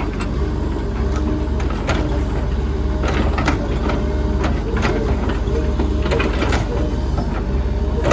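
Engine of a heavy digging machine running steadily, with a series of sharp knocks as dirt is knocked off the uprooted tree's root ball.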